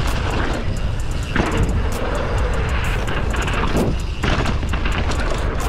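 Mountain bike being ridden over rough dirt: wind buffets the microphone in a constant low rumble, over quick rattling clicks from the bike.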